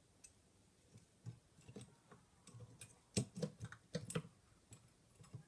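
Irregular light clicks and knocks of vacuum motor unit parts being handled and fitted together during reassembly, busiest about three seconds in.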